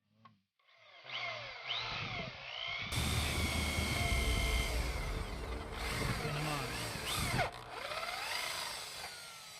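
Power tool motor whirring in repeated runs, its pitch rising and falling as it speeds up and slows down, with a sharp click about seven and a half seconds in.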